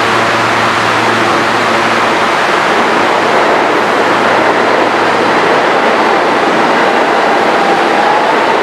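New York City subway N train standing at the platform with a steady hum and rumble, then starting to pull out, with a rising motor whine near the end as it accelerates.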